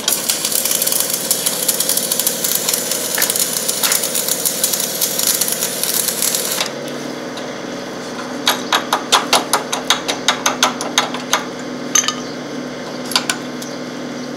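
Arc welding crackle for about the first six and a half seconds, then it stops. An engine-driven welding generator keeps running with a steady hum, and partway through there is a quick run of light metal taps at about five a second, then a couple more single taps.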